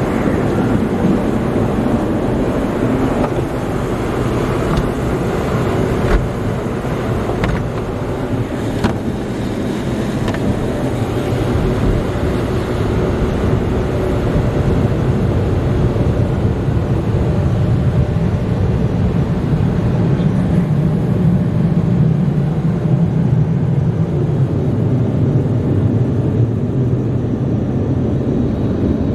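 Belanger tunnel car wash working on the car, heard from inside it: steady spraying and cloth wash material sweeping over the body, with a low equipment rumble that grows stronger in the second half. A few light knocks come about 6 to 9 seconds in.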